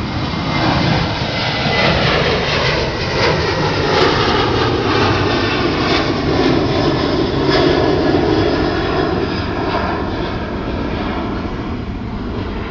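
Airplane flying low overhead, its engines making a loud rushing noise. The noise builds in the first second, is strongest around the middle and eases off near the end as it passes.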